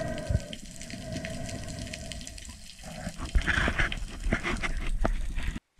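Underwater water noise: a low rushing and churning of water around the camera, with scattered small clicks and a brief hiss about three and a half seconds in. The sound cuts off abruptly just before the end.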